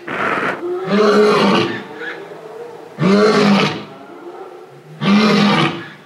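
Male lion roaring in a series of short grunting calls about two seconds apart, each arching up and down in pitch, with a breathy sound at the start.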